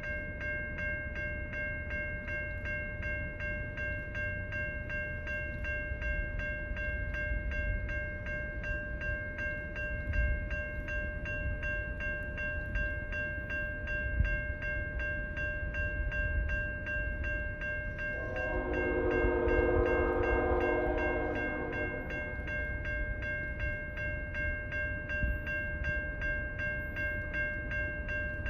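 Train rumbling along, with a steady high ringing that pulses with a fast regular beat throughout. One long locomotive horn blast of about four seconds sounds past the middle.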